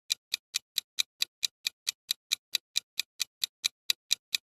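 Quiz countdown-timer sound effect: an even, fast clock ticking, about four and a half ticks a second.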